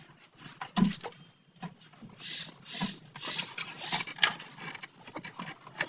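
Irregular clicks, knocks and short scrapes of tools and metal shock-absorber parts being handled, with the loudest knock about a second in.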